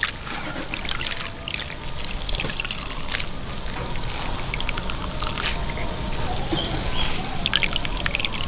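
Water splashing and trickling in a large aluminium basin as hands wash and squeeze chopped green vegetables, with water streaming back into the basin from the wrung handfuls.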